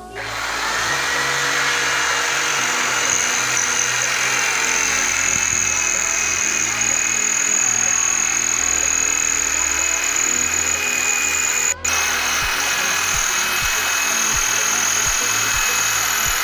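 Corded electric drill running steadily as it bores holes into a plastered wall for wall plugs, with a high steady whine; it breaks off for a moment about twelve seconds in and then runs on.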